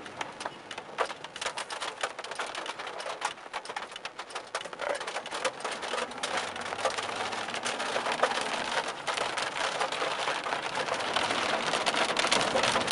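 Heavy thunderstorm rain hitting the car's windshield and roof, heard from inside the cabin as many sharp drop ticks over a hiss. The rain grows denser and louder over the seconds.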